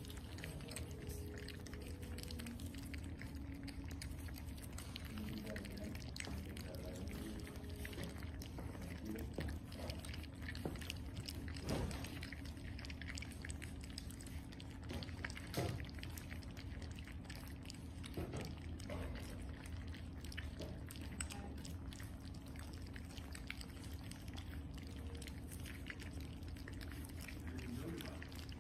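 A litter of French bulldog puppies lapping and chewing wet raw-food mash from a shared bowl: a steady patter of small, irregular wet smacks and slurps.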